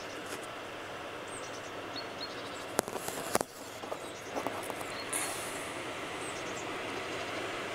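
Diesel-hauled train approaching from a distance behind English Electric Class 40 and Class 55 Deltic locomotives: a steady rumble that slowly grows louder. Two sharp clicks about three seconds in.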